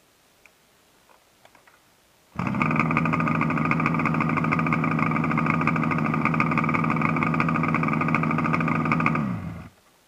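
Motorcycle engine starting abruptly about two seconds in and running at a steady idle for about seven seconds, then switched off, its pitch dropping as it dies. A few faint clicks come before it starts.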